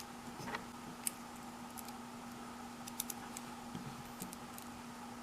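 Faint, scattered clicks and light taps of small parts and tools being handled, over a steady low hum.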